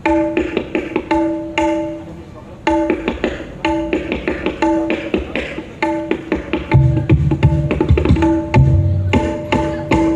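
Dangdut gendang played solo for a sound check: ringing, high-pitched struck strokes in a quick rhythm with a brief pause, then deep bass strokes joining about seven seconds in.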